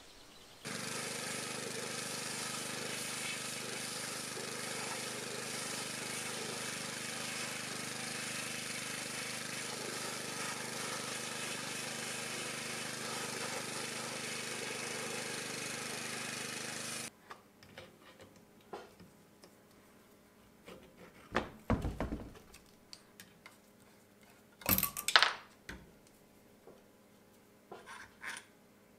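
Pressure washer running with its spray jet blasting water, a steady loud hiss over the pump's steady hum, cutting off suddenly partway through. After it come a few sharp knocks and clinks of metal parts being handled at a workbench.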